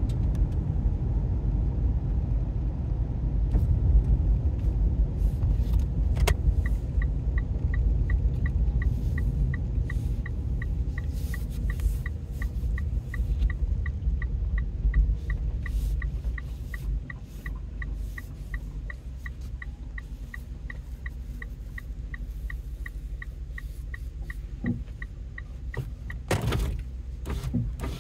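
Car cabin with a steady low road and engine rumble; about six seconds in a click starts the turn-signal indicator ticking evenly at about three ticks a second, stopping shortly before a brief loud rustle near the end.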